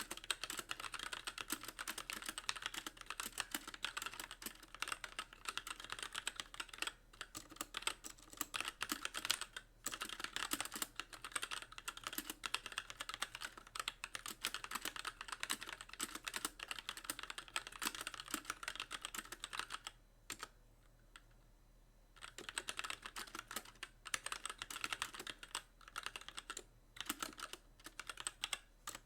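Fast, continuous typing on a Magicforce mechanical keyboard with light linear Gateron Clear switches and stock keycaps, the keys bottoming out with each press. A pause of about two seconds comes a little past two thirds of the way through.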